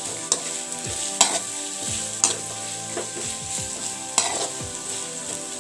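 Sliced onions and carrot strips sizzling steadily in oil in a metal kadai as they are sautéed, with a slotted metal spoon stirring through them and clinking against the pan four times.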